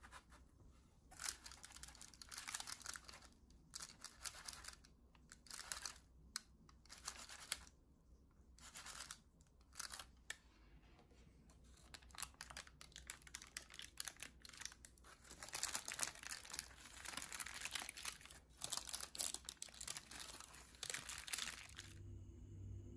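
Parchment baking paper around a cake being crinkled and peeled back by hand, in irregular crackly bursts with short pauses, busiest in the second half.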